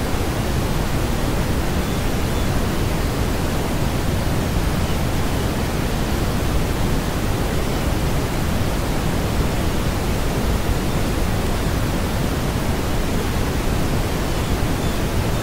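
A steady, even hiss of noise, fullest at the low end and unchanging in level.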